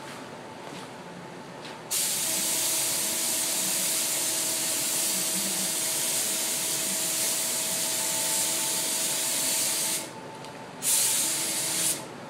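Air-fed gravity-feed spray gun hissing as it sprays paint: one long pass of about eight seconds, then a second short burst about a second long near the end.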